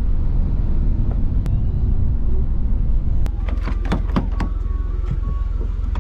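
Steady low rumble of a car on the road. Several short sharp clicks and brief voices come in the second half.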